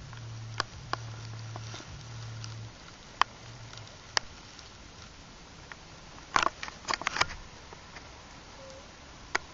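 HO scale model freight train running on a layout: a low steady hum for the first two to three seconds that then fades, with scattered sharp clicks and a quick cluster of them about six to seven seconds in.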